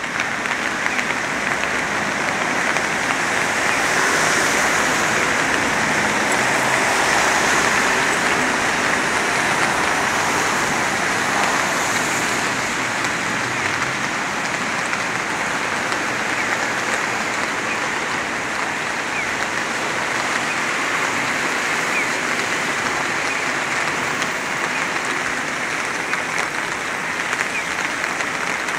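Steady rain falling: an even hiss with scattered sharp drop ticks, a little heavier a few seconds in.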